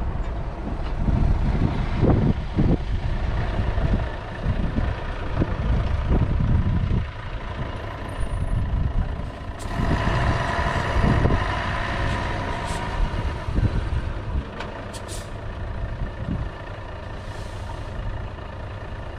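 A Mercedes-Benz E1824 concrete pump truck's diesel engine running, with a heavy low rumble that surges unevenly and some knocks. About ten seconds in, a higher whine joins for a couple of seconds.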